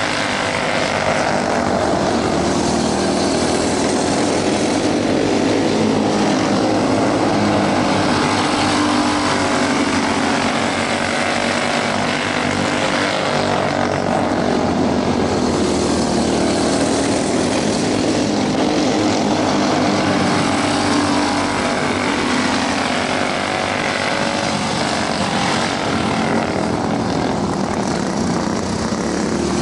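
Several racing karts' small engines running flat out as the pack laps, a dense buzzing drone of overlapping pitches that swells as the karts come around and eases as they move away.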